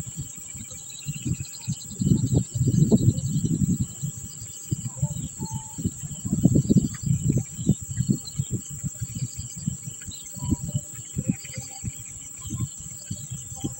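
Insects shrilling in a steady high-pitched drone, with faint bird chirps over it. Irregular low rumbles and thumps come and go, loudest a couple of seconds in and again around the middle.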